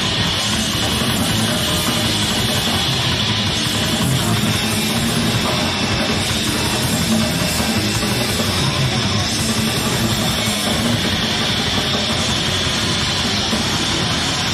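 Death metal band playing live: distorted electric guitars, bass guitar and drum kit in a dense, continuous full-band sound with no breaks.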